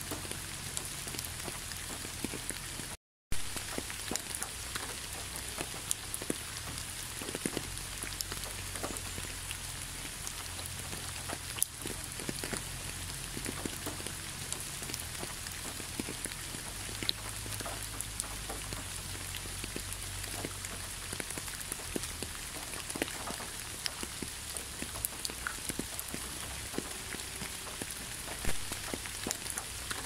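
Steady rain falling on a wet, leaf-strewn asphalt road: a constant hiss with many single drops ticking close by. The sound drops out completely for a split second about three seconds in.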